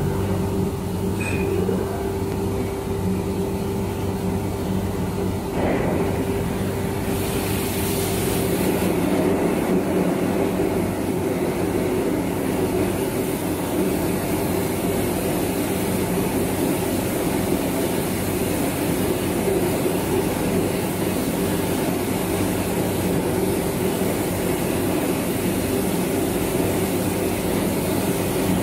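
Complete automatic rice milling unit running: a steady machine hum with a constant tone, from its motors and blowers, with a stronger hiss joining about seven seconds in.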